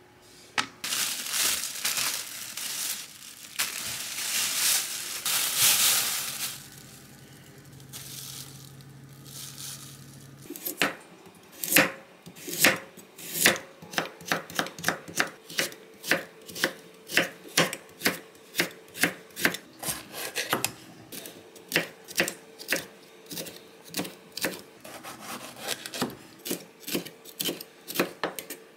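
Plastic packaging rustling and crinkling for the first several seconds. Later a kitchen knife cuts carrot and red bell pepper on an end-grain wooden cutting board: a steady run of sharp knife-on-board knocks, a few a second.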